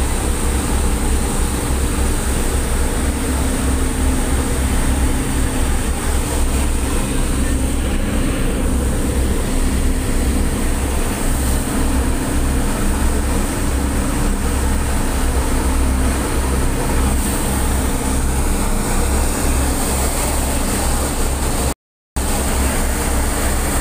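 Motor vessel's diesel engines running steadily under way, a deep low drone with a steady hum over it, mixed with the rush of water churned up in the wake. The sound cuts out for a moment near the end.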